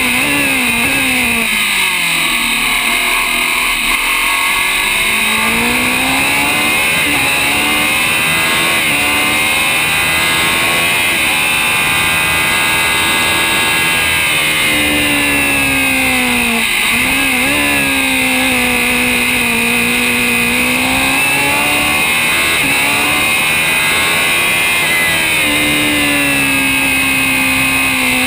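Onboard sound of an open-wheel historic Grand Prix race car's engine at racing speed. The engine note falls sharply just after the start and again around the middle as the car brakes and downshifts, then climbs back through the gears, over a steady rush of wind.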